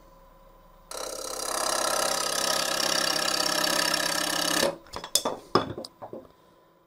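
A wood lathe spinning a blank while a turning tool cuts it, with a fast, even rhythmic chatter. It stops abruptly after about four seconds and is followed by a few scattered clicks and knocks.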